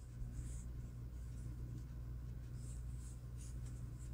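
Soft, irregular rustling and scratching of yarn being drawn and looped with a crochet hook, over a steady low hum.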